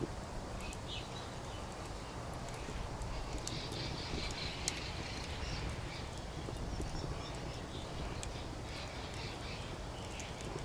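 Wood fire crackling in a fire pit, with scattered sharp pops and one louder pop about halfway through, over a low steady background hum.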